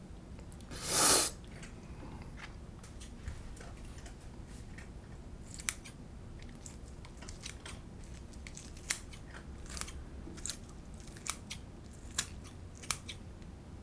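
Scissors snipping: a series of short, sharp snips spread irregularly over several seconds. A loud, brief rush of noise comes about a second in, before the snips.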